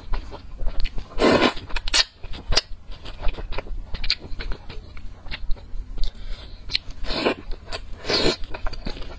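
Close-miked eating of noodles in soup: wet chewing and small mouth clicks throughout, with three loud slurps, one about a second in and two near the end.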